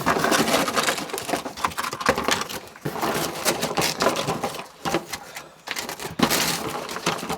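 Rapid, irregular clicking and clattering, like hard objects being handled, with brief lulls about three and five seconds in.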